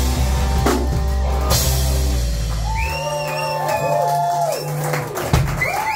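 Live rock band with distorted electric guitars, bass and drum kit ending a song: a held final chord with cymbal crashes that cuts off about three seconds in.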